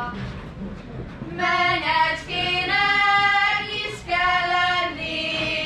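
Group of young girls singing a Hungarian folk song together on one melody line, in long held notes. The singing starts about a second and a half in and runs in phrases with short breaks between them.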